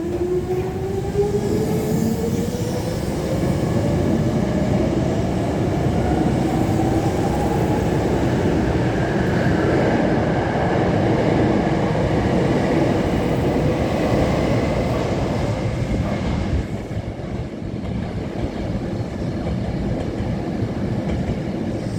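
Hankyu 5100 series electric train pulling out and accelerating: the traction motor whine rises steadily in pitch over the first several seconds, then the wheels' rolling noise carries on as the cars go by, easing off about two-thirds of the way through.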